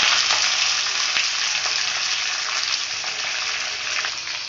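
Sliced onions, green chillies and curry leaves sizzling as they go into hot oil in a kadai: a steady frying hiss that slowly dies down.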